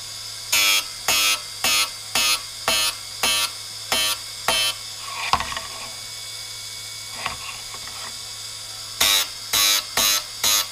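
Drill bit point being split (web thinned) on a TDR 82B drill grinder's wheel, ground in short, even strokes about two a second over the grinder motor's steady hum. The strokes stop for a few seconds in the middle, with one clink, then start again.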